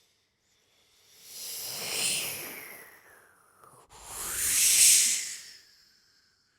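Two breathy, wind-like hissing swells from two sopranos' voices, each rising and then fading away, the second one louder.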